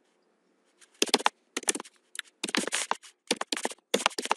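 Computer keyboard keys clicking in quick bursts of keystrokes as a word is typed, starting about a second in.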